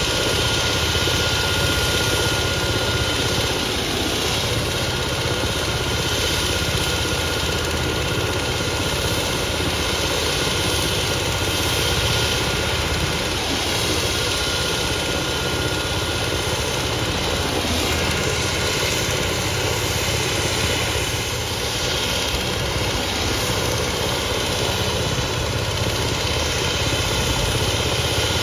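Medical helicopter's turbine engine running steadily: a thin, high whine over a steady rumble.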